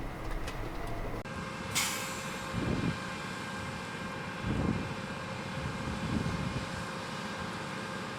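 Woodworking machinery running with a steady hum, with a short sharp hiss of compressed air just under two seconds in.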